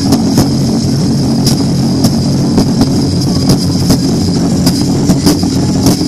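Loud live stage music with drums: a heavy, steady low rumble with sharp drum strikes about twice a second, unevenly spaced.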